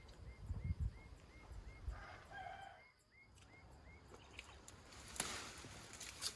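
A rooster crows briefly about two seconds in, over a run of small quick chirps at about three a second. In the second half come rustling and clicks of vine leaves and stems as grapes are picked by hand.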